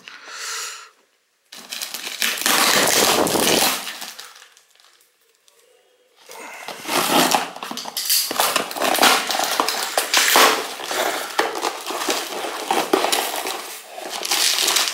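Plastic courier bag and packing tape crinkling and tearing as a cardboard shipping box is pulled open by hand, its cardboard flaps scraping, in irregular bursts with a quiet stretch about four to six seconds in.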